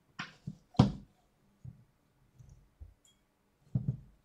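Clicks and knocks of plastic parts being pressed into place and handled on an LCD panel's metal frame as the backlight tube's holder is fitted. There are two sharp clicks in the first second, the second the loudest, then softer knocks and a quick pair of clicks near the end.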